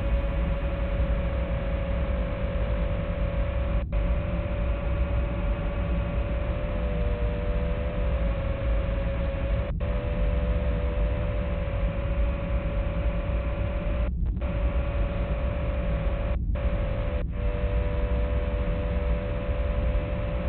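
Steady electrical hum and hiss from the analog FPV video link's audio channel, with a mid-pitched tone that wavers a little, broken by five brief dropouts where the signal cuts out.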